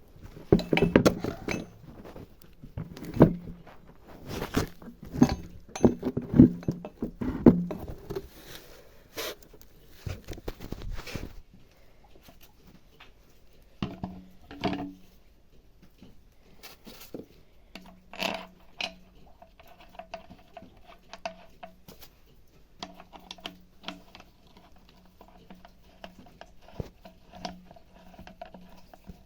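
Irregular clinks and knocks of hand tools and metal parts being handled, busiest in the first dozen seconds and sparser later, with a faint steady hum in the second half.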